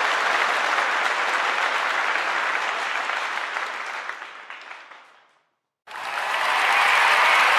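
Audience applause that fades away, falls silent for about half a second, then starts again and swells back up.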